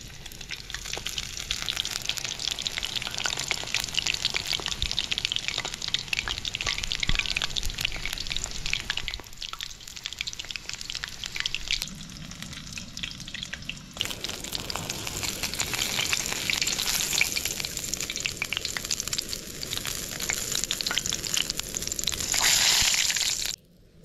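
A crisp-coated chicken leg deep-frying in hot oil in a steel wok, the oil sizzling and crackling densely. It gets briefly louder near the end, then cuts off suddenly.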